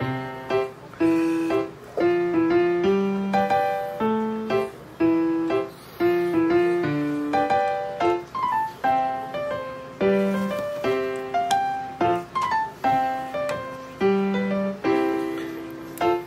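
Background piano music playing a steady melody of single notes and chords.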